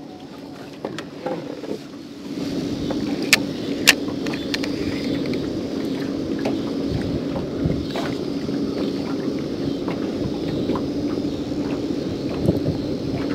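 Electric bow-mounted trolling motor (Minn Kota Terrova) humming steadily, holding the boat in place. Two sharp clicks a little past three and four seconds in.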